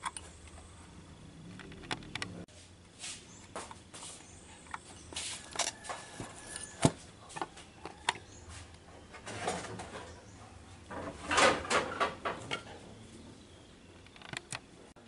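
Irregular clicks, knocks and rattles from a car subwoofer amplifier board and its aluminium heatsink being handled on a workbench, with a louder clatter about eleven seconds in.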